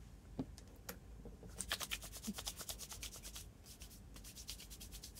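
Clear plastic bag crinkling and rustling as it is worked off a small telescope by hand, with a couple of light clicks in the first second and a quick run of crackles from about one and a half to three and a half seconds in.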